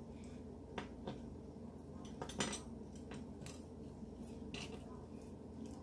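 Metal rotisserie fork clinking against the rotisserie shaft as it is worked through a raw chicken's legs: a few light clicks, with a louder clatter about two and a half seconds in, over a faint steady hum.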